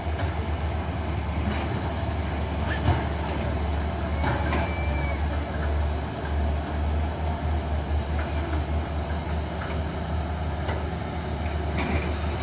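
Diesel engines of Caterpillar crawler excavators running, a steady low rumble, with scattered short knocks and clanks; the sharpest knock comes about three seconds in.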